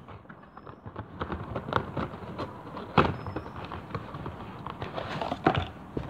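Toy helicopter's cardboard packaging being handled and opened: irregular knocks, taps and scraping rustle, the loudest knock about three seconds in.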